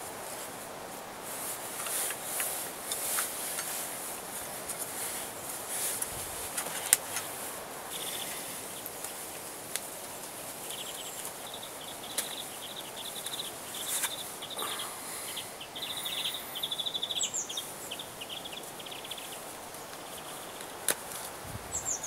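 Scattered small clicks and rustles of a pistol crossbow being handled while its bow string is fitted, the sharpest click about seven seconds in. Behind it a bird repeats a quick chirping trill from about eight seconds in for some twelve seconds, with a couple of short falling whistles.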